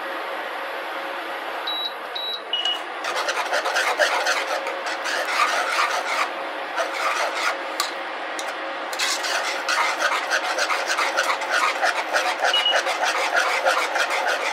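Wire whisk scraping rapidly around a metal saucepan, mixing cream into thickening cranberry gravy. The scraping starts about three seconds in, after a steady hiss with a few short high beeps.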